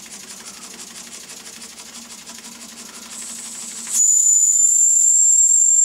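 Tiny brass steam whistle on a toy steam engine's boiler, blown by steam: a soft hiss, then about four seconds in a loud, very high, thin, steady whistle that keeps sounding to the end. It is pitched so high that an older listener cannot hear it.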